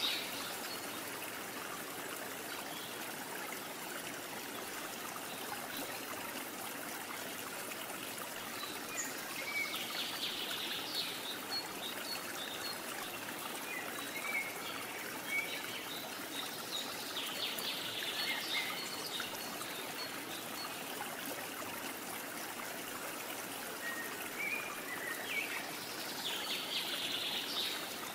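Steady flowing-water sound like a trickling stream, with a few short bird chirps now and then.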